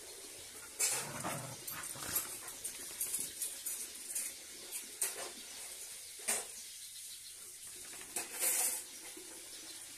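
A dog sniffing about, a series of short irregular snuffles and scuffs.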